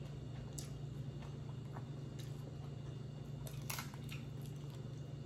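Crab leg shells cracked and snapped apart by hand in a few short sharp clicks, the loudest a little before four seconds in, over a steady low hum from a kitchen freezer.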